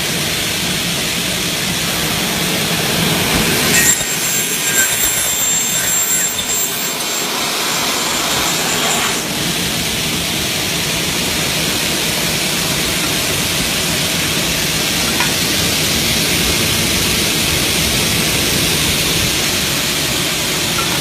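Aluminium-cutting saw machine running with a steady, noisy whir. A louder, high-pitched stretch from about four to nine seconds in, then it settles back to the steady run.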